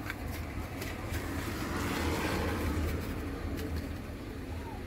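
Steady low hum under a broad rush of noise that swells and fades over a couple of seconds in the middle, as a road vehicle passes, with a few light clicks.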